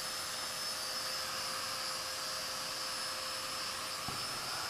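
Steady whir of a Festool Domino joiner running with its dust extraction hose attached, at low level with no change in pitch, and one sharp click about four seconds in as the tool meets the workpiece.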